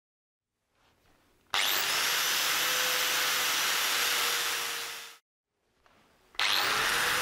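Angle grinder grinding the edge of 8 mm black mild steel plate clamped in a vice, as preparation for welding. It spins up with a rising whine about one and a half seconds in, runs steadily, winds down and stops about five seconds in, then starts again with another rising whine near the end.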